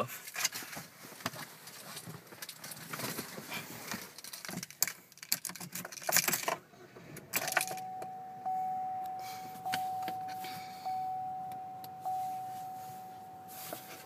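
Keys jangling and clicking handling noise, then from about seven seconds in the 2012 Chevy Malibu's dashboard warning chime dings repeatedly, about once every second and a bit. Each ding is a single clear tone that fades before the next one.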